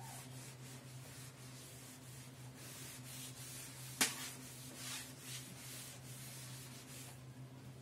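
Cloth duster wiping chalk off a chalkboard, a faint rubbing in repeated strokes, with one sharp tap about four seconds in. A steady low hum runs underneath.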